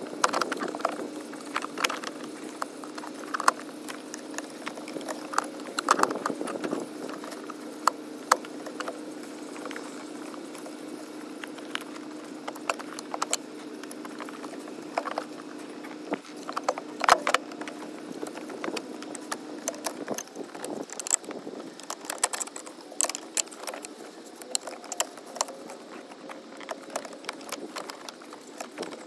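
Metal tools and parts clinking, clicking and knocking at irregular intervals as the brake pipes and ABS/DSC unit of a BMW E90 are worked loose by hand, over a steady low hum that stops about twenty seconds in.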